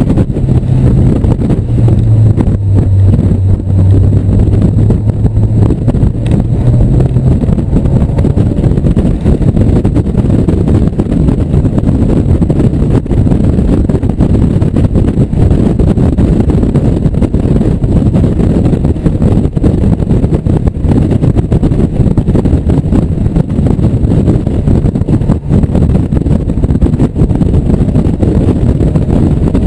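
1997 Mazda Miata's 1.8-litre four-cylinder engine running hard at track speed, heard from inside the open cockpit over loud wind and road noise. A steady low engine note stands out for the first several seconds, then blends into the general din.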